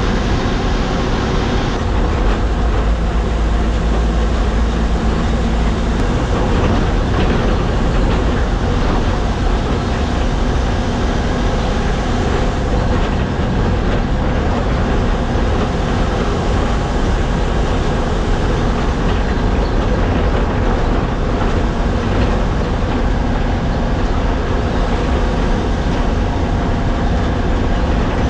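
Non-AC sleeper bus on the move, heard from inside the driver's cabin: a steady diesel engine drone and road noise, with the bus body rattling.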